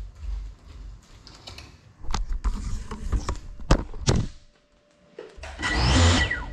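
Clicks and knocks of a crashed Geprc Cinelog 35 FPV drone being handled and set back down level on a tiled floor, several sharp taps in quick succession. After a brief hush comes a short loud rush of noise near the end.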